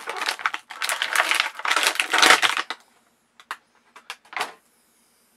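Clear plastic action-figure packaging tray crackling and clicking as the figure is worked out of it. A dense run of crackles lasts about three seconds, followed by a few separate clicks.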